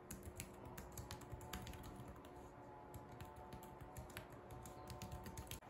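Typing on a compact wireless Bluetooth keyboard with round keys: a quick, uneven run of quiet key clicks.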